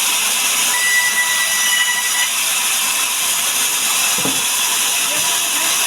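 Sawmill saw cutting mahogany: a loud, steady hissing noise with a thin, steady whine running under it.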